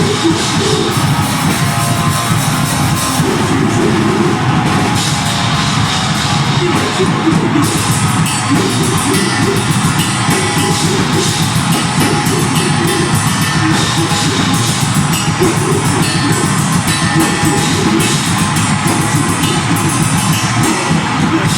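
Deathgrind band playing live: fast, heavily distorted guitars and bass over rapid drumming, loud throughout.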